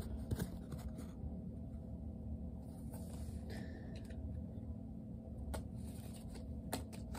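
Baseball trading cards being handled and sorted by hand: soft rustling and scattered light clicks of card against card, over a faint steady background hum.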